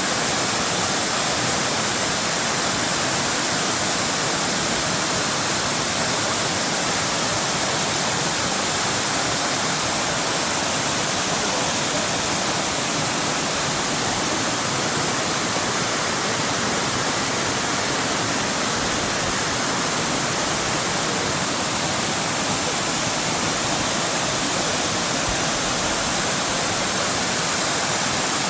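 Soco Falls waterfall rushing: a steady, loud, unbroken wash of falling water that does not change.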